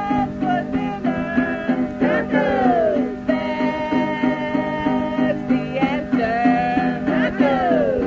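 Background music: an acoustic folk tune with plucked strings keeping a steady pulse under a melody of long held notes that slide down in pitch, twice dropping sharply.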